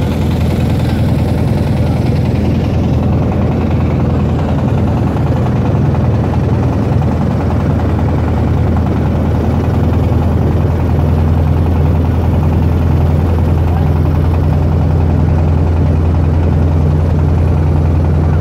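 Engine of a wooden river boat running steadily under way: a continuous low drone that gets slightly louder about halfway through.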